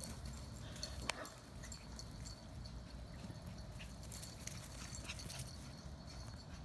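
Dogs moving about and playing, heard faintly as scattered light clicks and rustles, with no barking.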